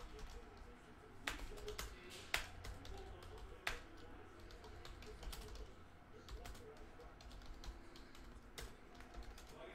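Typing on a computer keyboard: an irregular patter of key clicks, with a few sharper, louder strikes among them.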